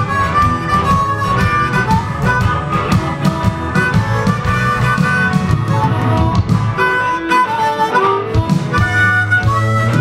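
Harmonica played into a handheld microphone, a melody of held notes over backing music with bass and a steady drum beat.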